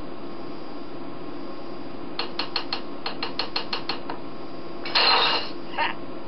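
Cartoon soundtrack playing through a tablet's small speaker over a steady hum: a quick, even run of about a dozen clicks, roughly six a second, then a short loud burst of noise about five seconds in and a briefer one just after.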